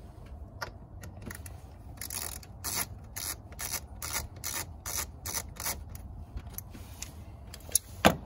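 Phillips screwdriver backing out the screws on a mass airflow sensor housing, a run of short scratchy clicks about three a second, then one sharp click near the end.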